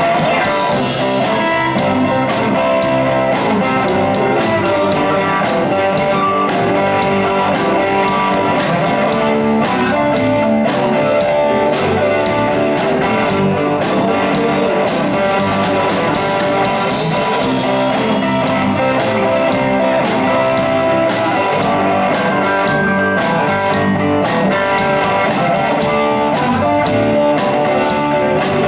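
Live rock band playing an instrumental passage without singing: electric guitar over bass guitar, drums and keyboard, with a steady drum beat.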